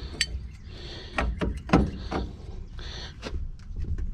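Irregular metallic clicks and knocks of hand tools working at a truck air dryer's air line fitting that is stuck and won't come loose, with two short hissy scrapes about a second in and near three seconds.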